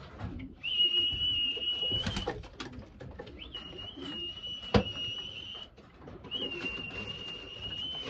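A whistle sounded in three long, steady notes with short gaps, calling racing pigeons in to the loft, with pigeons cooing underneath. One sharp knock comes a little past halfway.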